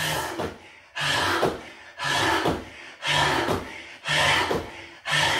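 Someone doing hands-off push-ups on foam mats, about one repetition a second. Each one is a sharp thump with a hard breath out that fades within about half a second.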